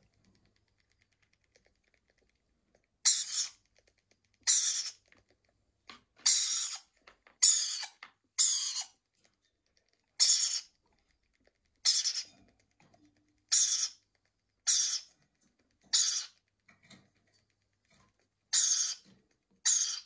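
Four-week-old rainbow lorikeet chick giving short, hissy, high-pitched begging calls while being spoon-fed formula: about a dozen calls, roughly one every second and a half, starting about three seconds in.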